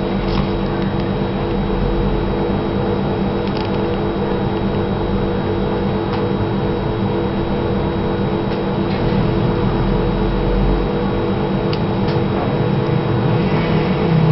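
A steady droning hum with several fixed tones, and a few faint clicks.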